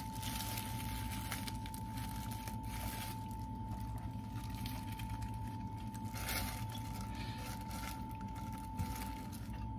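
Disposable plastic gloves crinkling and rustling as hands work sticky rice in a glass mixing bowl, in short irregular bursts over a steady low hum and a thin constant whine.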